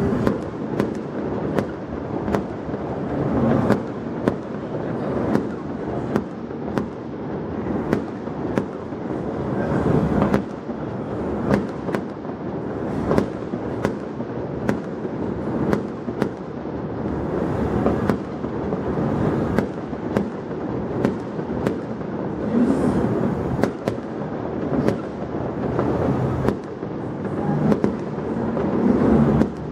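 Aerial fireworks bursting in a continuous barrage: sharp bangs about once or twice a second over steady noise from many shells at once.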